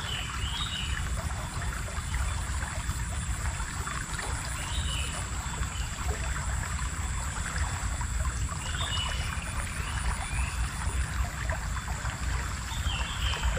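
Water of a small river flowing with a steady rushing sound, and a short high chirp recurring about every four seconds.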